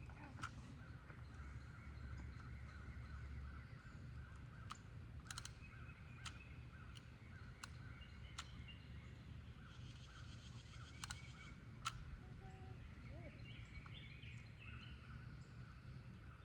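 Faint outdoor ambience: a steady high chirring and a low rumble, with about eight sharp clicks scattered through.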